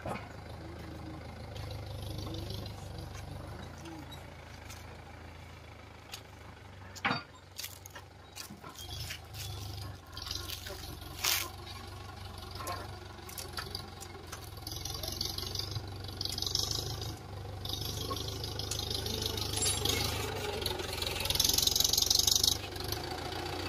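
Mahindra Yuvo tractor's diesel engine running while hauling a tipping trailer, with a few sharp clanks partway through. The engine grows louder near the end as the tractor comes close.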